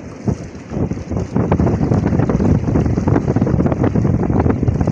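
Strong wind buffeting the microphone: a loud, gusty low rumble that grows heavier about a second and a half in.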